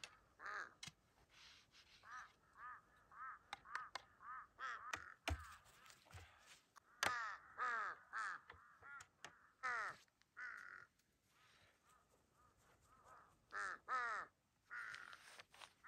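Birds calling over and over in short, harsh calls. A few light clicks and knocks come from a folding camp table being packed up, with a dull thump about five seconds in.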